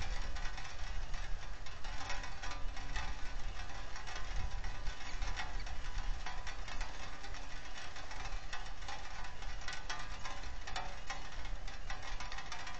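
Steady rain falling on and around the nest camera's microphone: a dense, crackling patter of drops over a low rumble.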